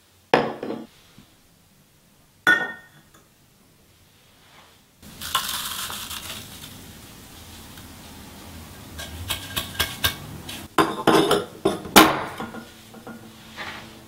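Glassware and coffee gear handled on a tabletop: a glass coffee server knocks down, then a clink with a short ring. About five seconds in comes a soft rush of ground coffee poured into a paper filter, followed by a quick run of sharp clinks and taps.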